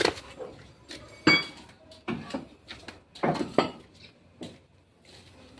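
Metal clanks and clinks from hand tools working on the exhaust under the vehicle, several irregular sharp knocks with the loudest about a second in.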